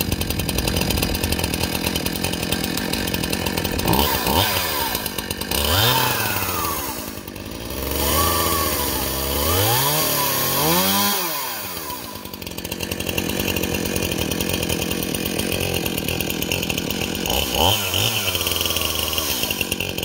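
Brand-new Stihl Farm Boss 271 chainsaw's two-stroke engine running after its first start, the throttle blipped several times so it revs up and drops back. The revs come around four and six seconds in, as a longer run of repeated revs in the middle, and once more near the end.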